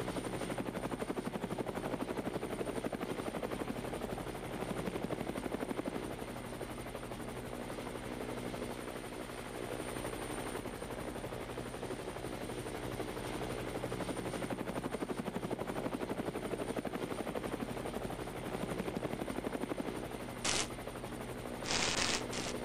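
Multirotor drone's propellers and motors giving a steady hum of several tones with a rapid flutter. Near the end come a few short bursts of static-like hiss, a glitch sound effect.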